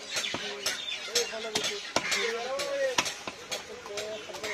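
A large fish-cutting knife scraping and knocking against a carp and the wooden chopping block: a quick run of sharp scrapes and clicks. Crows call in the background.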